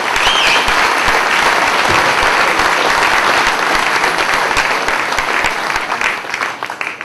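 Audience applauding, a dense clapping that thins and fades near the end.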